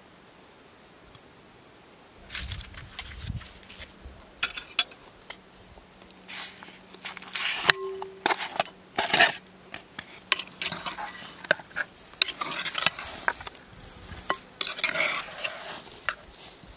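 A knife and spoon clinking and scraping against a clay cooking pot and a small ceramic cup, with raw lamb pieces slid off a board into the pot and then stirred with a spoon. The clatter starts about two seconds in, in irregular clicks and scrapes that grow busier in the second half.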